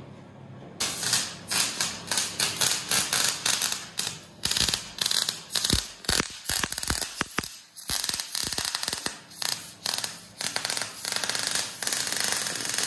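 MIG welder's arc crackling and spitting as steel is welded, in stop-start runs with short gaps, starting about a second in.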